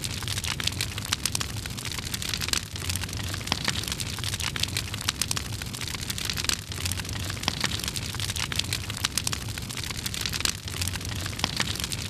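Fire crackling: a steady dense crackle and hiss, thick with sharp pops, over a low rumble.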